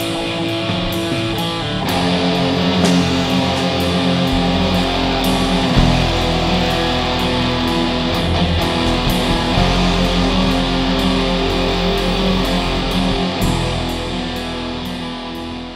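Background rock music with electric guitar over a steady drum beat, starting to fade out near the end.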